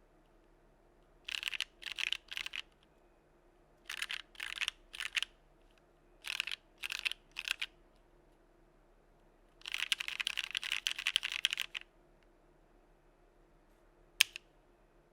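Mechanical keyboard typing on Novelkeys x Kailh Box Cream linear switches in a Geonworks Frog with an aluminium plate: three short groups of three keystrokes, then a fast flurry of about two seconds. One lone sharp click comes near the end.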